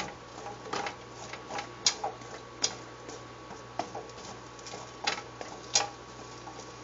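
Irregular light clicks and knocks of kitchen utensils and asparagus being handled, a few louder taps among them, over a faint steady hiss.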